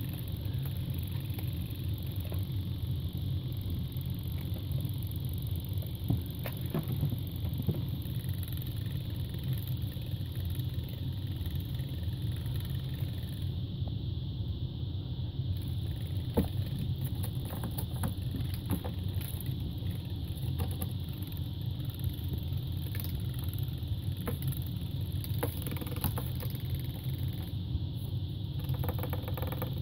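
A steady low mechanical hum throughout, with scattered light taps and clicks.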